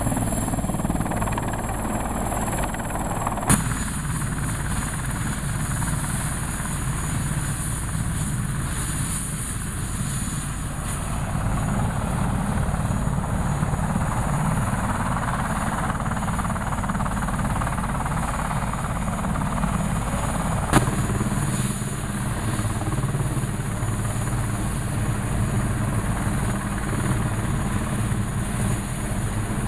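Sikorsky CH-53 heavy-lift helicopter's rotors and turbine engines running at close range, first hovering low and then on the ground with rotors turning: a steady, heavy rotor beat. Two sharp clicks where the sound jumps, about three and a half and about twenty-one seconds in.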